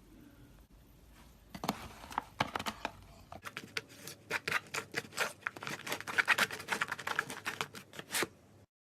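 Slime being worked by hand, giving a dense run of rapid crackling clicks and pops that starts about a second and a half in and cuts off suddenly near the end.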